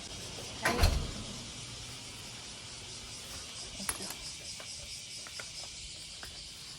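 One heavy thump about a second in, then a sharp click near the middle and a few light ticks, over a steady high-pitched insect chorus.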